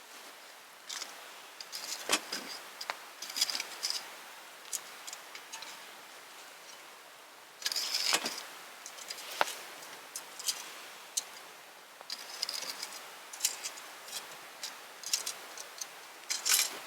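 Wood campfire crackling, with clusters of sharp pops and snaps over a faint steady hiss.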